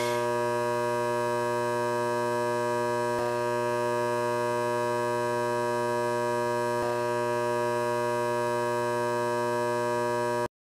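An electric motor giving a steady electrical hum, one buzzing tone with many overtones, of the kind a motor makes when it starts to fail or has jammed. There are two faint clicks partway through, and the hum cuts off abruptly near the end.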